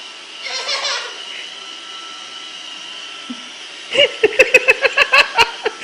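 Robot vacuum cleaner running with a steady whir and hiss. About four seconds in a small child breaks into rapid, repeated giggling.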